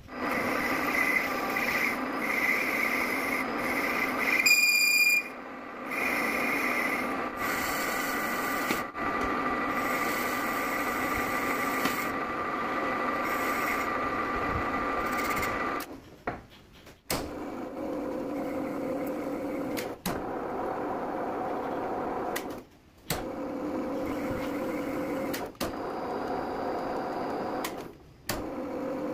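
Metal lathe running, its tool cutting inside a spinning metal tube as the bore is turned and then internally threaded, a steady machine whine with scraping cutting noise and a brief high squeal about five seconds in. Past the middle the whine drops to a lower pitch, and the sound breaks off briefly a few times.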